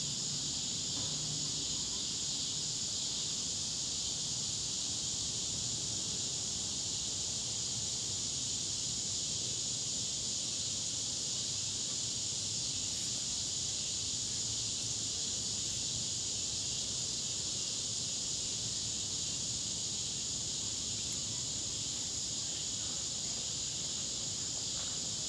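Steady, unbroken high-pitched chorus of insects droning.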